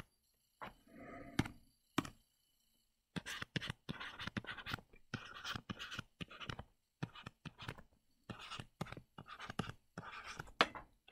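Stylus on a tablet screen, faint: a couple of separate taps in the first two seconds, then a run of short, irregular scratching strokes as handwriting is written out.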